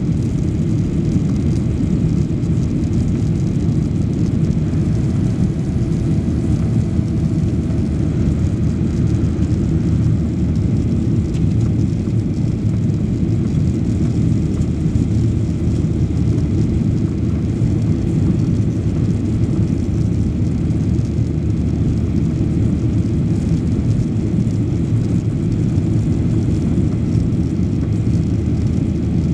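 Steady low drone of a Boeing 737 Next Generation's CFM56-7B turbofan engines and rushing airflow, heard inside the cabin shortly after takeoff.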